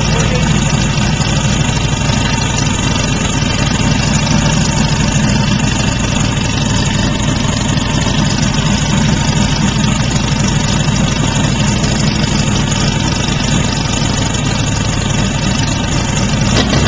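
Turbocharged 1835cc air-cooled VW flat-four with a blow-through setup, idling steadily on an engine test stand while it is being tuned.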